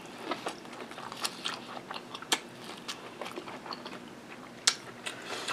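Close-up mouth sounds of biting kernels off a cob of corn on the cob and chewing them: a string of sharp, wet clicks and crunches, with one louder snap near the end.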